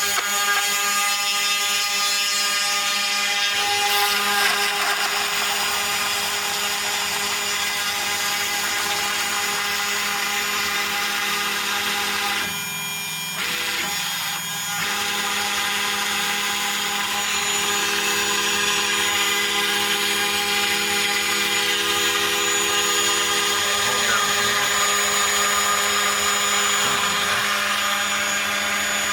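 Homemade CNC router running through a cut: its 1.5 kW spindle gives a steady high whine while the machine's motor tones change and switch as it moves. The sound dips briefly about halfway through.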